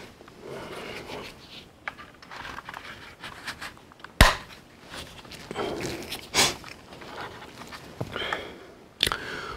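Hard plastic parts of a Hasbro Tatooine Skiff toy being handled and pressed onto ball joints: rustling and scattered clicks, with one sharp click about four seconds in.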